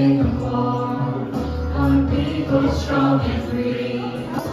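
A man sings a sing-along song into a microphone over an instrumental backing track, amplified through the hall's speakers.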